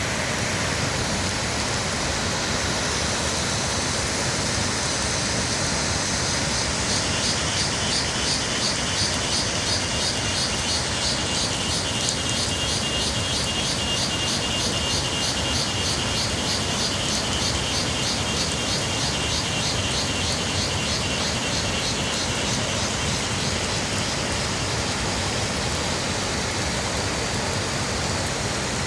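Steady rushing of a rain-swollen waterfall mixed with falling rain. A high, rapidly pulsing buzz joins in about seven seconds in and fades out about twenty-three seconds in.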